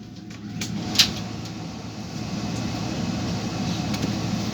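Airliner cabin noise: a steady low hum of the aircraft's engines and air system, growing slightly louder, with one sharp click about a second in.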